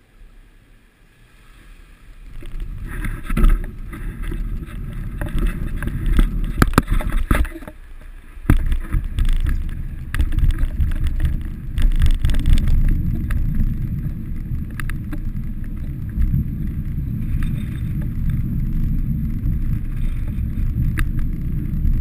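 Wind buffeting the microphone of a bike-mounted camera as the bicycle sets off and rides along. The low rumble builds over the first few seconds and then holds steady, with scattered clicks and rattles from the bike in the first half.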